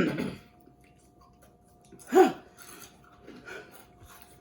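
A person chewing crunchy Xxtra Flamin' Hot Cheetos, with faint crunches, and two short voiced sounds: one at the start and a louder one about two seconds in whose pitch falls.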